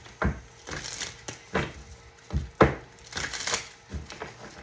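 Tarot cards being handled on a table: a series of irregular taps and clacks with papery rustling, about ten in all, the loudest about two and a half seconds in.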